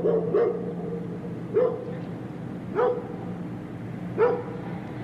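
Large dog barking: two barks in quick succession, then single barks spaced over a second apart, five in all.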